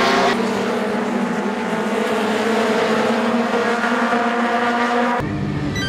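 Several vintage Japanese big-bike race motorcycles at high revs, their engine note rising steadily as they accelerate out of a corner and past. It cuts off abruptly about five seconds in, replaced by a different, lower sound.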